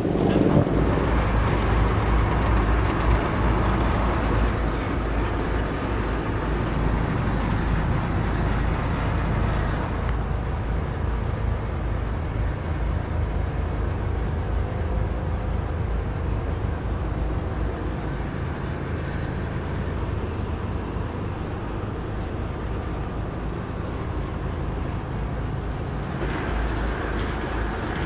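Steady low rumble and hum of a river cruise boat's engine, heard inside its cabin.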